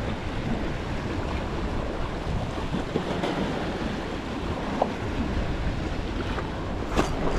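Small waves washing against the rocks of a stone jetty, mixed with steady wind buffeting the microphone.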